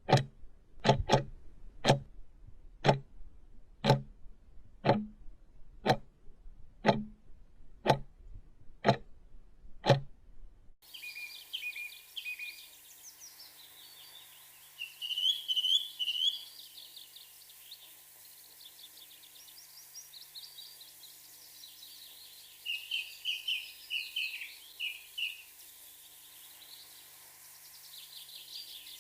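A clock ticking about once a second, cut off suddenly about ten seconds in. Then outdoor birdsong: many birds chirping and trilling, with a few louder bursts of trills.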